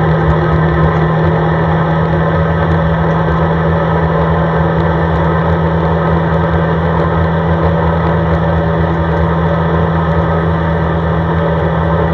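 CFMoto ATV's engine running at a steady speed while driving, a constant low drone that neither rises nor falls.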